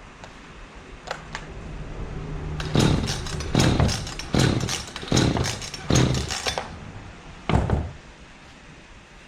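Chainsaw's recoil starter cord pulled several times in quick succession, about one pull every second, and a last pull a little later. The engine does not catch: the saw will not start, a fault put down to the carburettor diaphragm.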